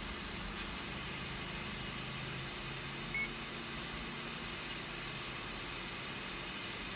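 Hot air blower running steadily: an even fan hiss with a faint low motor hum. A single short electronic beep sounds about three seconds in.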